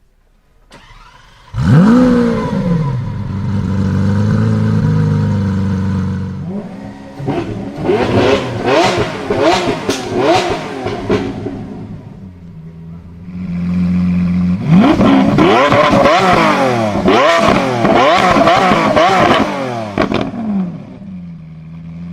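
Supercar engine coming in suddenly with a loud rev flare, settling to a steady note, then revved hard in rapid up-and-down blips in two long bursts before dying down near the end.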